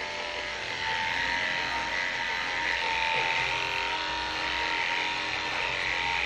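Electric dog-grooming clippers running with a steady buzz.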